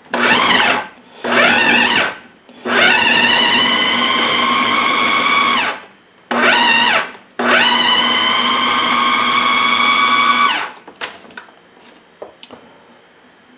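Food processor motor whirring in five runs, two short pulses, one of about three seconds, another short pulse and a second three-second run, its blade cutting cold cubed butter into flour for a pie crust. The pitch rises as each run starts and falls as it stops.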